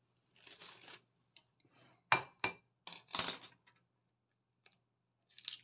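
An egg knocked against the rim of a ceramic bowl to crack it: a few sharp clinks, the loudest about two seconds in, after a soft rustle of handling.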